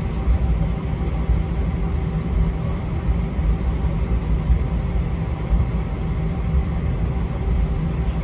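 Steady low rumble of an Airbus A321 airliner heard inside the cabin: engine and airflow drone holding an even level, with faint steady hum tones above it.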